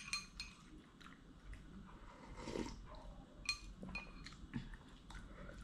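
Faint chewing and eating sounds of someone eating instant noodles, with a few soft clicks.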